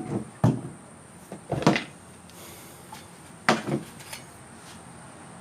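A series of sharp knocks and clunks, some in close pairs, from parts and tools being handled and set down.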